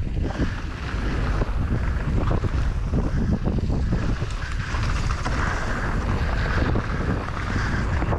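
Wind rushing over an action camera's microphone as a mountain bike rides fast downhill, its tyres rolling on dirt, with frequent short rattles and knocks from the bike.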